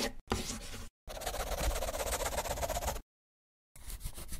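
Marker pen drawing on paper: a couple of short strokes, a long steady stroke of about two seconds, then after a short pause quick back-and-forth scribbling, about ten strokes a second.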